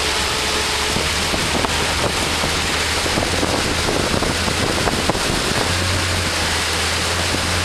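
Wind rushing over the microphone and churning wake water from a fast-moving inflatable motorboat, with a steady low engine hum underneath that firms up about six seconds in.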